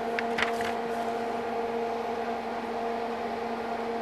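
A steady machine hum with a few faint clicks in the first second, as plastic parts are handled.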